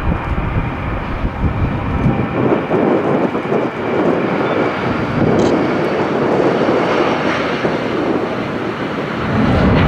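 Jet engines of a Delta Boeing 757 running at high power as it rolls along the runway, a steady rushing noise that swells and wavers and grows louder near the end.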